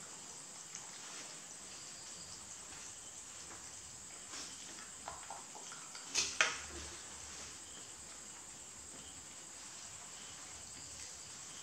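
White rabbit eating soursop from a plastic tray: a few faint crunches and sharp clicks, the loudest two close together about six seconds in, over a steady high hiss.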